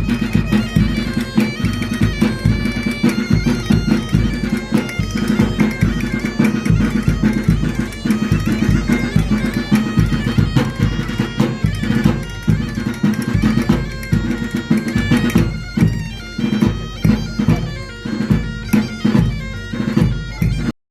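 Background music: a bagpipe tune over a steady drone, with a drum beat, cutting off abruptly at the end.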